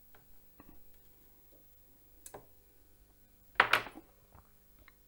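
Faint clicks and small handling noises from fine brass wire and snipe-nose pliers as the wire is bent and offered up to a model locomotive's smoke box. A sharper click comes a little over two seconds in, and a short louder noise about three and a half seconds in.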